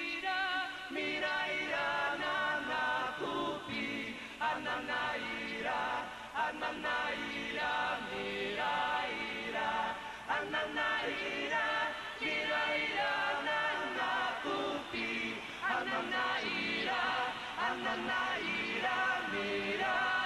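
A song sung by several voices together, continuing without a break.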